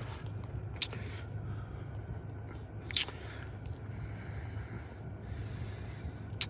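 Steady low hum with three short, sharp clicks: about a second in, at three seconds, and near the end.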